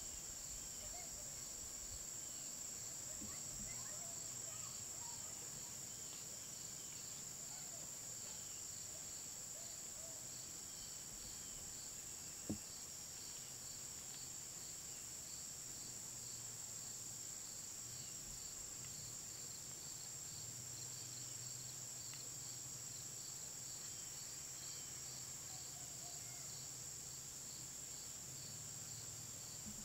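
Crickets and other insects calling steadily in a continuous high drone, with a rapid pulsing chirp beneath it. A single sharp click about twelve seconds in.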